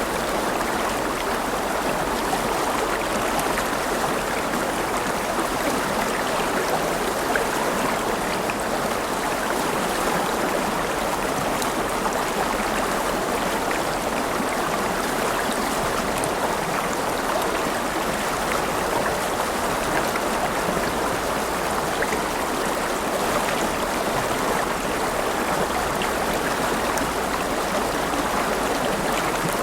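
River water flowing steadily over rocks, a continuous rushing and babbling with small splashes and trickles.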